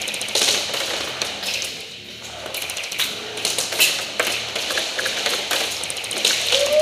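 Airsoft guns firing: short bursts of rapid clicking shots and single cracks, on and off. A short tone falling in pitch is heard right at the end.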